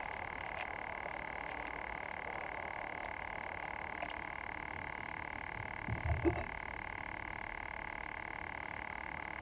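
Small camp stove burner hissing steadily under a pot of water. A couple of low knocks about six seconds in, from handling gear.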